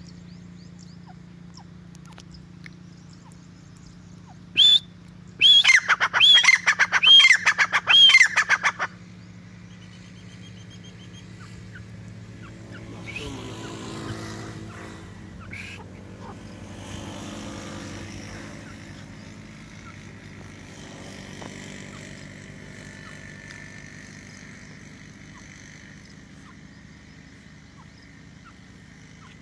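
Grey francolin (teetar) calling: a single short note about four and a half seconds in, then a loud, fast run of repeated ringing notes lasting about three seconds.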